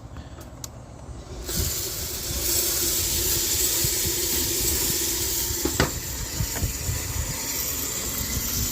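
DIY drum coffee roaster starting its roast: the steady rushing hiss of its 1200-watt convection heater fan comes on about a second and a half in, over a low hum. There is a sharp click past the middle and a hum rising in pitch near the end.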